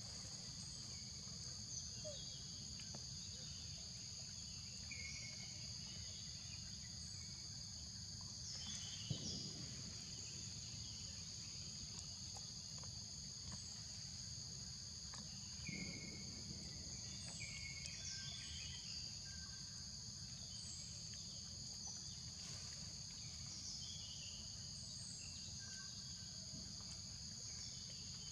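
Insect chorus droning steadily at two high pitches over a low background rumble, with short chirps scattered throughout and a brief soft knock about nine seconds in.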